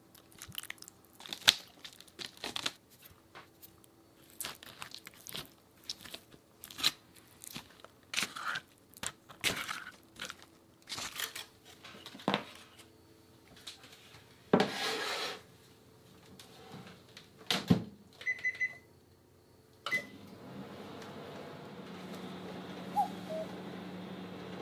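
Parchment paper crinkling and a dish being handled with scattered knocks and clicks, then a microwave oven beeps a few times and starts running with a steady hum for the last few seconds.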